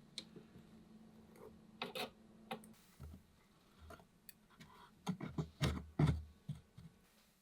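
Handling sounds from setting moss into the wood of an aquarium aquascape: scattered light clicks and taps, with a run of louder soft knocks about five to six seconds in.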